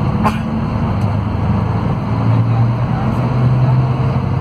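Scania DC13 inline-six diesel of a Scania K400IB coach, heard from inside the passenger cabin while the bus is under way: a steady low drone with road noise, its hum growing stronger about two seconds in. A short click sounds just after the start.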